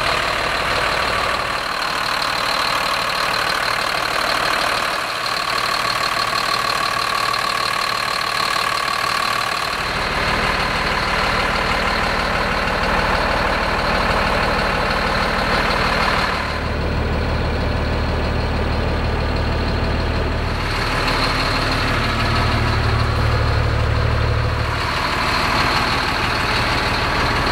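Diesel engine of a 2006 Freightliner M2 hauler truck idling steadily. From about ten seconds in, heard from inside the cab, the low rumble grows deeper and fuller.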